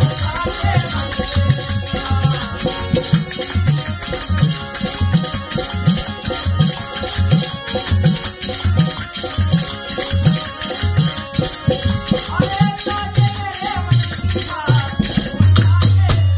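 Fiji bhajan music: harmonium with dholak drum strokes about twice a second and constant jangling hand-held jingles. Voices sing near the start and again in the last few seconds, and the drum ends on a held roll.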